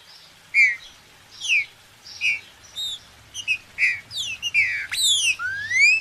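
Green-winged saltator (trinca-ferro) singing: a series of clear whistled notes, mostly falling slurs. They come faster toward the end and close on a long rising whistle.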